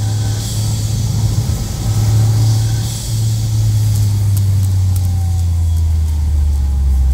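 Toyota GR Yaris's turbocharged 1.6-litre three-cylinder with an Eventuri intake and HKS Hi-Power Spec-L II exhaust, heard from inside the cabin with a window slightly open. A steady low drone whose pitch sinks slowly in the second half, with a few faint sharp ticks later on.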